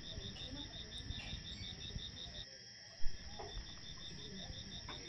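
Crickets chirping in a rapid, even pulse, about six chirps a second over a steady high trill. A single sharp knock comes about three seconds in.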